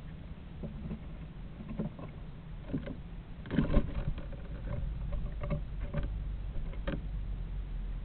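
Scattered scratching, scraping and knocking on the walls of a nest box, as from an animal's claws moving on the outside of it, with a cluster of louder knocks about halfway through. A steady low rumble lies underneath.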